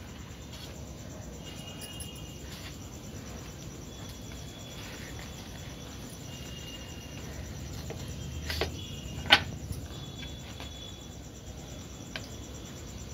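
Crickets chirping faintly under a low steady background hiss. A soft knock about eight and a half seconds in is followed by a sharp click, the loudest sound here.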